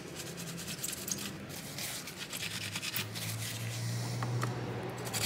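Paper towel rubbing and scratching over a laptop mainboard in quick strokes, wiping off isopropyl alcohol after a corrosion clean; the strokes thin out after about three seconds, and a low steady hum runs under the second half.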